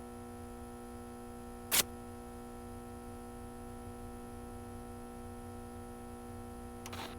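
A steady hum made of several held tones, with a single sharp click nearly two seconds in and a short run of clicks near the end.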